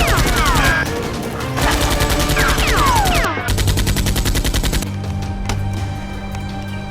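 Rapid automatic gunfire sound effect in three bursts, with falling ringing pings among the shots, over background music; the firing stops about five seconds in.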